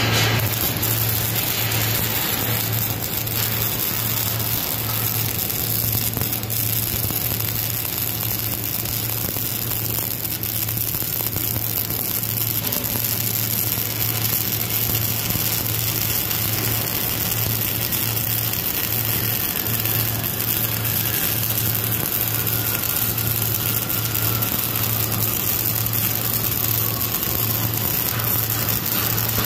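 MIG welding arc on steel, running steadily: a continuous crackling hiss over a low, even hum.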